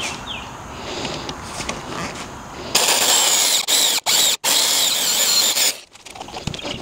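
Corded electric drill boring a hole into a 6x6 wooden beam, the bit chewing through and throwing out chips. The motor and cutting get much louder about three seconds in, with a high wavering whine, cut briefly twice, and drop away about a second before the end.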